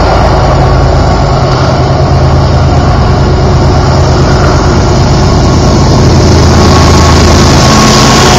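A lash-up of BNSF GE diesel-electric locomotives working upgrade as they pass close by: a steady, loud low engine drone, with rushing noise growing louder about six seconds in as the units come alongside.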